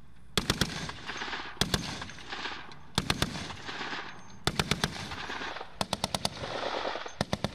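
Vehicle-mounted heavy machine gun firing six short bursts of two to five rounds each, every burst followed by a rolling echo.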